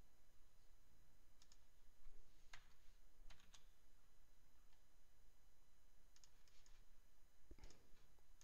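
Faint computer mouse clicks, several scattered single clicks and quick pairs over quiet room tone.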